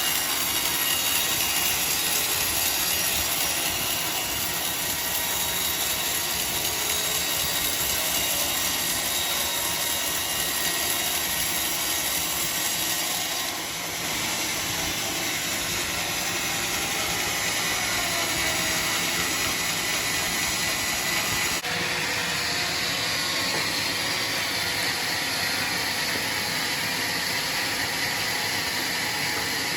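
Power saw running steadily, a loud even mechanical din. The sound changes abruptly twice, about halfway through and again about two thirds of the way in.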